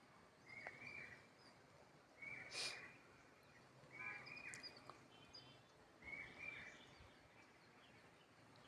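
Faint short animal calls, four in all about two seconds apart, each an arching chirp-like note, with a brief soft hiss after the second.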